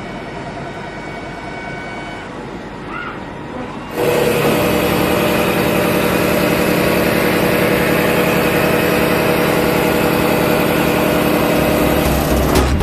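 CNC milling machine with a high-feed face-milling cutter: a quieter machine hum, then about four seconds in the cutter engages the metal workpiece. A loud, steady cutting noise with many steady tones follows, holding until near the end.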